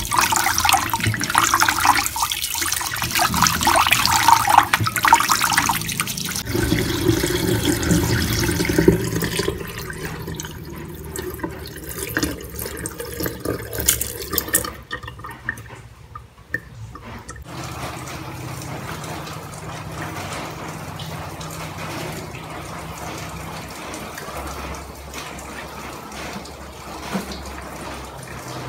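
Rice being washed by hand in a pot of water: the grains swish and rub under the hand, loud for the first several seconds. The cloudy rinse water is then poured off into a sink, and the sound drops to a low, steady hum.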